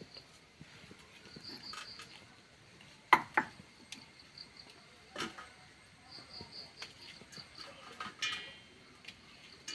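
Crickets chirping steadily in the background, with a few light knocks and clicks of kitchen utensils, two close together about three seconds in and another about five seconds in.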